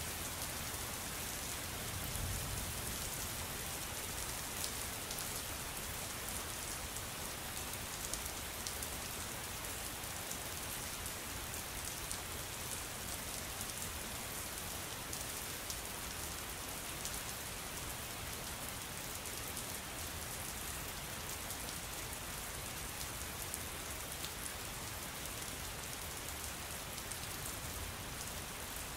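Steady rain, an even hiss with many fine drop ticks throughout.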